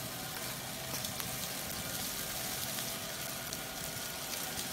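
Barbecue-sauced chicken leg quarters sizzling on a grill grate over a hickory wood and charcoal fire: a steady hiss with many small crackles and pops.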